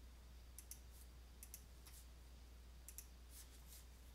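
Faint computer mouse clicks, several in quick pairs, over a low steady hum.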